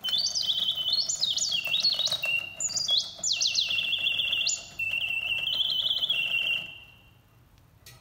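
Reuge two-bird singing bird cage automaton whistling its mechanical birdsong: quick chirps with fast rising sweeps and trills from the bellows-driven piston whistle, over the faint whir of the clockwork. The song stops about seven seconds in.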